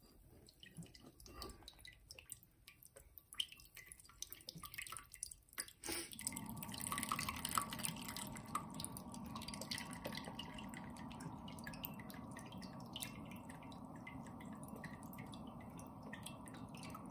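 Red cabbage water dripping and trickling through a coffee filter in a steamer basket into a bowl: a few scattered drips at first, then from about six seconds in a steady faint trickle dotted with drips.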